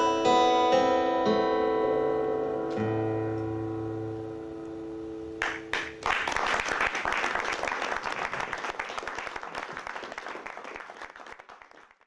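Steel-string acoustic guitar's last notes ringing and slowly dying away. About six seconds in, audience applause starts, then fades out near the end.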